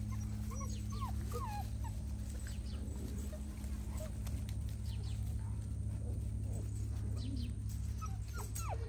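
A litter of eight-week-old American bully puppies whimpering and whining in short, faint, scattered cries, more of them near the end.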